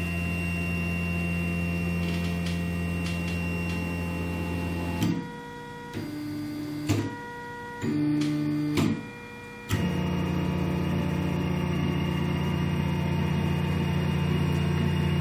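Stepper motors of a delta 3D printer running Marlin firmware, driving the carriages through a homing move. For about five seconds from roughly five seconds in, they give off a whine that changes pitch in steps, with small clicks between the moves. Before and after the move there is a steady low hum.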